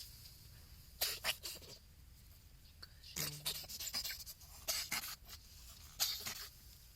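A cat sneezing: several short, hissy bursts in quick succession. The owner wonders whether it is a cold or hay fever.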